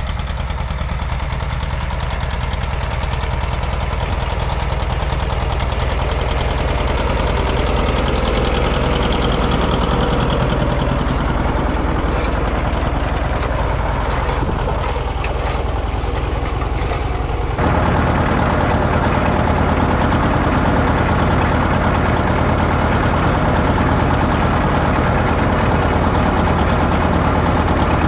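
John Deere 730 Diesel's two-cylinder diesel engine running steadily as it pulls a culti-mulcher through the field. The sound grows as the tractor nears, then turns abruptly louder and closer about two-thirds of the way through.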